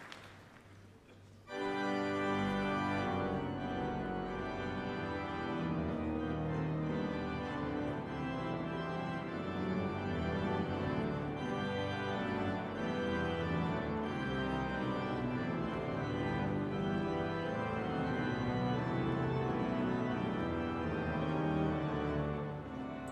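Pipe organ playing full, sustained chords that come in abruptly about a second and a half in, over the last faint applause.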